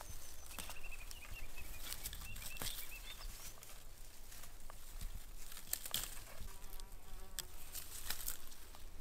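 Irregular crackling and snapping of dry twigs and forest litter as hands cut fern fiddleheads and fireweed shoots close to the ground with a small neck knife, with an insect buzzing close by.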